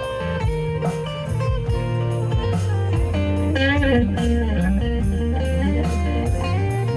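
Live blues band playing an instrumental passage: an electric guitar plays a lead line with bent, gliding notes over bass and drums.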